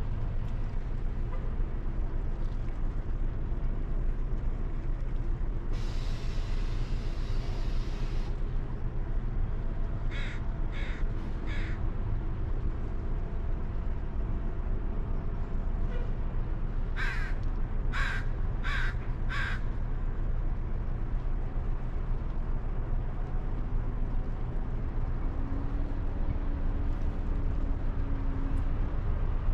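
A bird calling in short, repeated calls, three together about ten seconds in and four more about seventeen seconds in, over a steady low outdoor rumble. A brief hiss lasting about two seconds comes about six seconds in.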